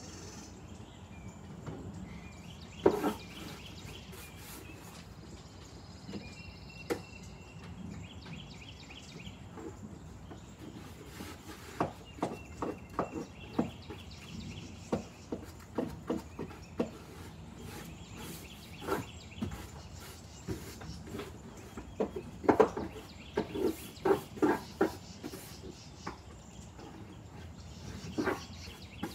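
Irregular sharp knocks and taps on wooden stair treads as the steps are being repaired, coming in short quick runs of several strikes around the middle and again near the end.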